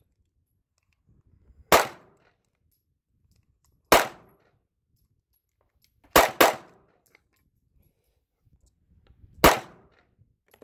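Five single shots from a semi-automatic pistol, fired slowly about two seconds apart, with two in quick succession about six seconds in. The rounds are handloads: 165-grain bullets over 5.0 grains of powder.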